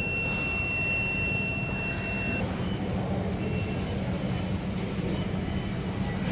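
Induction melting furnace running: a steady, very high-pitched whine over a low, steady rumble. A second, lower tone stops about two seconds in, and the whine rises slightly in pitch near the end.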